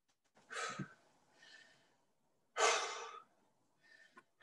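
A man breathing hard as he recovers from an intense exercise interval, with heavy puffed exhales: a strong one about half a second in, and a longer, louder one a little past the middle.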